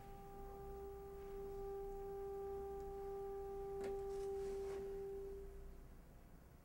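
A single steady note held by the orchestra, pure in tone, fading out about six seconds in, with two faint clicks partway through.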